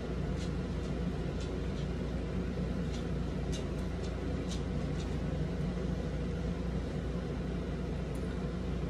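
Steady low room hum with a few faint, short clicks scattered through it.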